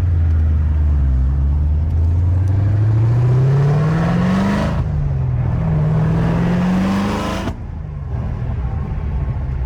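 C7 Corvette Z06's supercharged 6.2-litre LT4 V8, breathing through Kooks 2-inch long-tube headers, a 3-inch X-pipe and stock mufflers, accelerating through the gears. The engine note climbs for about four and a half seconds, drops at an upshift, climbs again, then falls away and quietens about seven and a half seconds in.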